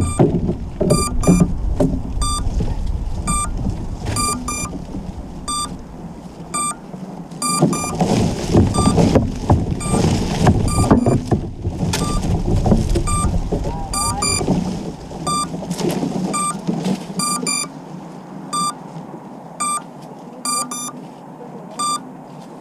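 Short, high electronic beeps repeating in small groups throughout, over a loud low rumbling noise that swells around the middle and eases off toward the end.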